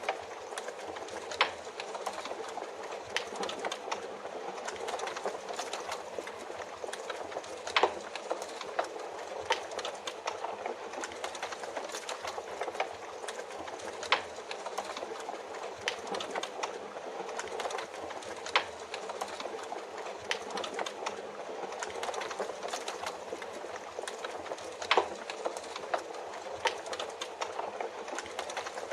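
Wood fire crackling, with irregular sharp pops every few seconds over a steady hiss of rain.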